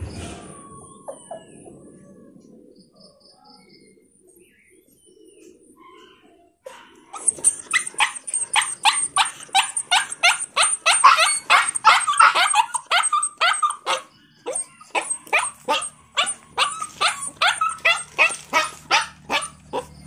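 A dog barking in a fast run of short barks, about three a second, starting about seven seconds in after a quieter stretch and broken by a short pause midway.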